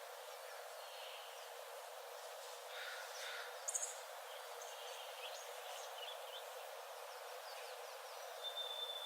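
Forest birds calling over a steady background hiss: scattered short chirps and twitters, one sharp high note about a third of the way in, and a long, thin, even-pitched whistle near the end.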